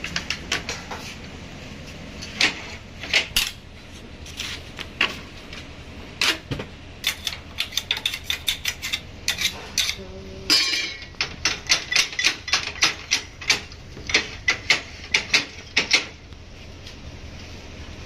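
A long steel bandsaw blade clinking and rattling as it is handled and coiled: an irregular run of sharp metallic clicks, thickest in the second half and stopping a couple of seconds before the end.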